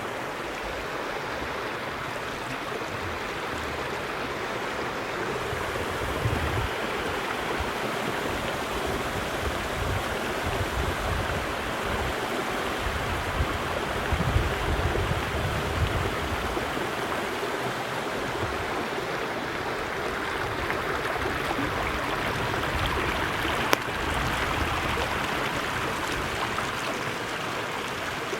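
A small stream running steadily over rocks, with irregular low rumbles underneath.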